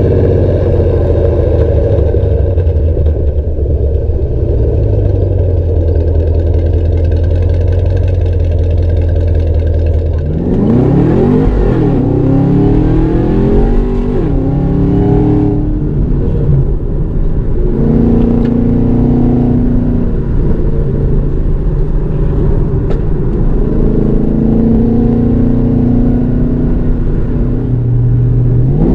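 2013 Camaro ZL1's supercharged 6.2-litre V8 with Kooks long-tube headers, catless mid-pipes and stock NPP exhaust, heard first at the exhaust tips as a steady low drone while the car rolls along. From about ten seconds in, heard from inside the cabin, the engine pulls up in rising sweeps that drop back again several times as the car accelerates.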